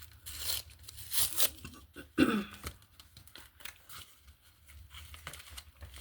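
A package being torn open by hand: tearing and crinkling of the packaging in several short bursts, the sharpest rip about two seconds in.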